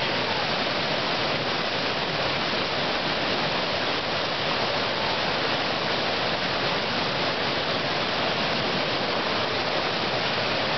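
River rapids rushing, a steady even hiss of white water with no let-up.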